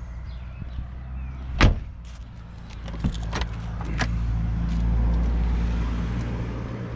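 A VW Passat B2's rear door is shut with a single solid thump about a second and a half in, followed by a few lighter latch and handle clicks around the open front door. Under it runs a steady low rumble that swells for a couple of seconds near the end and then eases.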